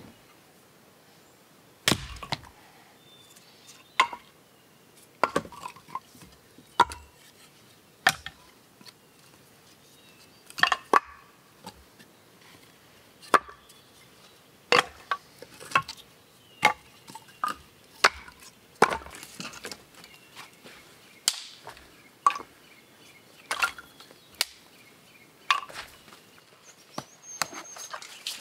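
Firewood being split into kindling: sharp wooden chops and knocks, irregularly spaced about one to two seconds apart.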